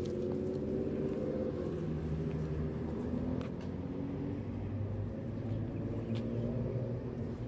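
Steady low rumble of a motor vehicle engine running on the street, with a few faint clicks.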